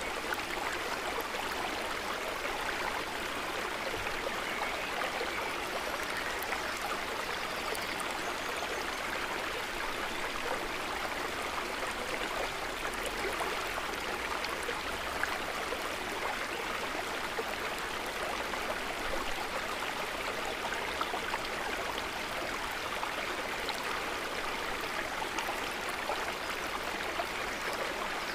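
Calm lake water trickling and burbling in a steady, even wash of small splashes, with no breaks.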